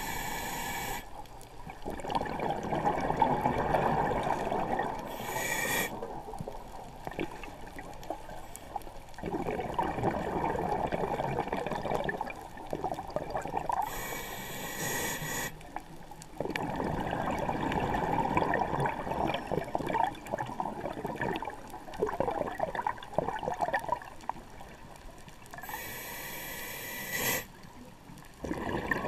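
Scuba diver breathing through a regulator, heard underwater: a short hissing inhale four times, each followed by several seconds of bubbling exhaust.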